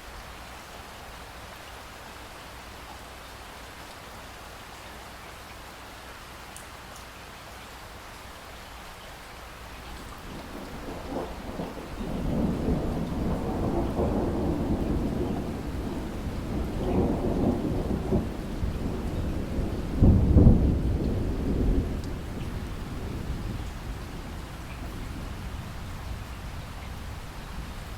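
Steady rain falling, with a long roll of thunder that builds about ten seconds in, rumbles in waves, and peaks in a sharp clap about twenty seconds in before rolling away over the next few seconds.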